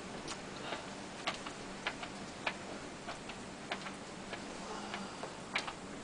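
Light, irregular clicking from the mechanical mimosa's nitinol-spring-driven moving parts, about two clicks a second, over a faint steady low hum.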